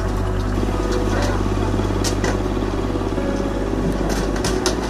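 A heavy crane's diesel engine runs steadily while it lifts a derailed passenger carriage. Several sharp knocks come about two seconds in and again near the end.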